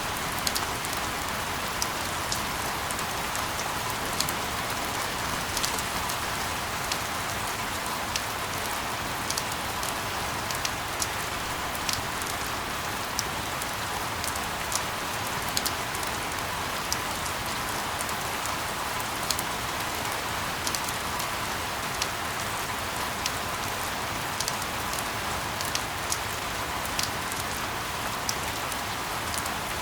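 Steady hiss of falling rain, with scattered sharper drop ticks landing at irregular moments throughout.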